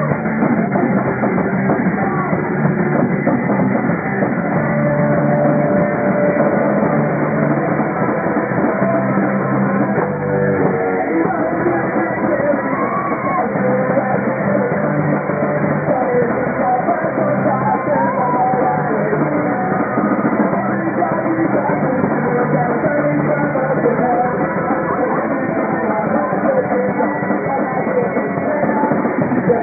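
Rock band playing live: electric guitars, bass and drum kit, continuous and loud.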